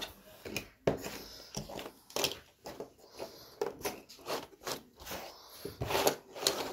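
Cardboard jigsaw puzzle pieces being handled on a tabletop: a string of irregular light taps and scuffs as pieces are picked up, slid and pressed together.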